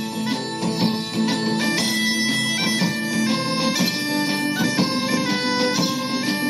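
Background music: a wind-instrument melody moving in stepped notes over a steady low drone.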